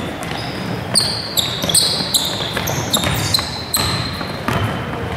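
Basketball shoes squeaking on a wooden gym floor, many short high squeaks as players cut and run, with a few sharp knocks of the ball bouncing.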